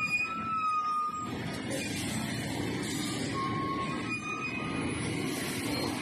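Heavy dump truck engines running as the loaded trucks crawl along a rough dirt road, a steady low rumble. A few short high tones sound over it now and then.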